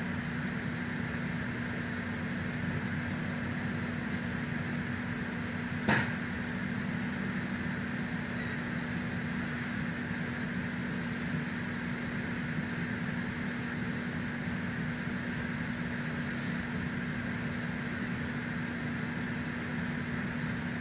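Wall-mounted air conditioner running with a steady hum and a constant low tone. One sharp click about six seconds in.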